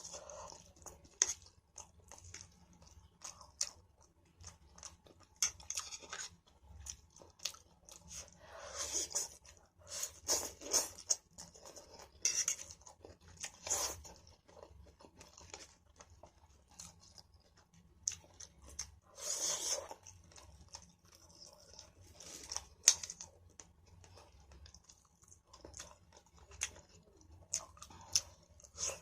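A person eating pancit canton (stir-fried noodles) close to the microphone: irregular chewing and mouth sounds with short clicks, pausing now and then.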